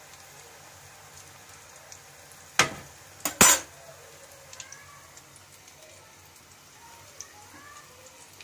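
Potato pieces deep-frying in hot oil in a kadhai, a steady sizzle. About two and a half seconds in come three sharp metal clanks close together, the loudest of them a second later, as a metal spatula knocks against the pan and cooktop.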